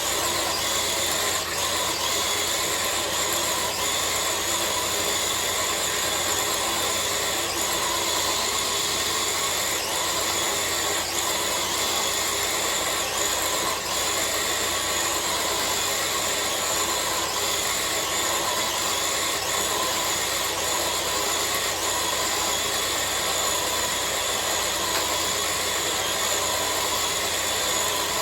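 Traxxas TRX-4 RC crawler's electric motor and geared drivetrain whining steadily as it pulls a sled weighted with four blocks.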